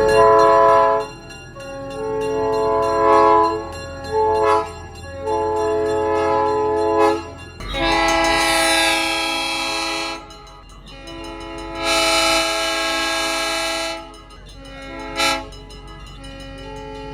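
Locomotive air horns sounding a chord in a series of blasts, mostly long ones of about two seconds with a few short ones between. Train running noise sits underneath.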